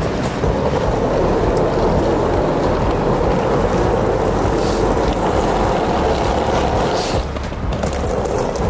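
Steady street traffic noise, dipping briefly about seven seconds in.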